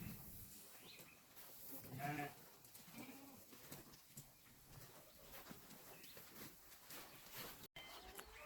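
A bleat from the farm's small livestock, one call about two seconds in and a shorter, weaker one about a second later.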